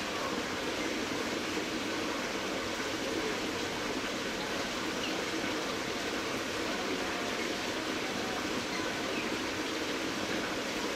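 Steady rushing background noise, even and unbroken, with no distinct sounds standing out.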